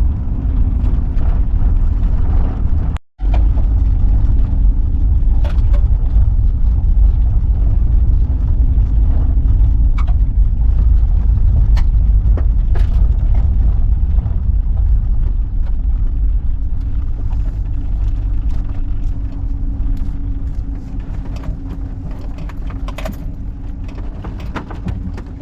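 Road noise inside a moving van: a steady low rumble of engine and tyres, with scattered small rattles and clicks. It cuts out briefly about three seconds in and grows quieter over the last few seconds as the van slows.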